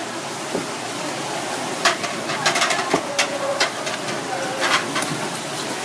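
Kitchen knife chopping and cracking spiny sea urchin shells on a plastic cutting board: a run of sharp knocks and crunchy cracks, bunched through the middle, over steady background noise.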